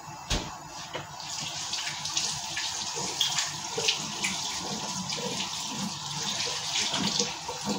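Kitchen tap running into a sink while hands are washed under it. The water starts about a second in as an even, splashy rush.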